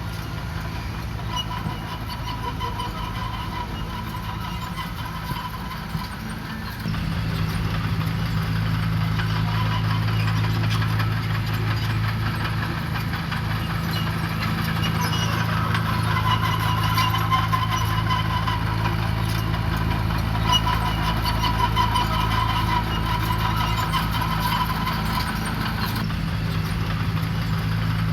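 Diesel engine of heavy road-building equipment running steadily, getting louder and heavier about seven seconds in, with a faint wavering whine above it.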